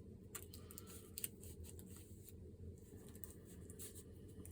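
Faint, irregular scratchy rubbing: a cleaning wipe being rubbed over a hair straightener's heating plate and element to clear off thermal compound.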